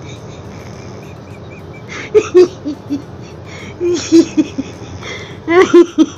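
French bulldog snoring in its sleep: short runs of quick rattling pulses that recur about every two seconds with each breath.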